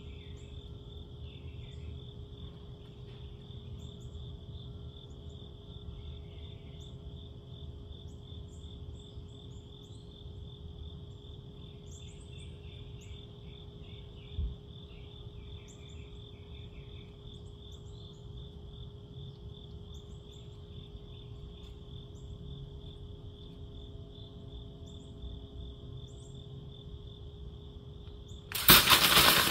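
Night insects trilling steadily with scattered chirps, and a soft thump about halfway. In the last second, a sudden loud metallic clatter as the trapped cat thrashes inside the wire live-trap cage and knocks the paper plate in it about.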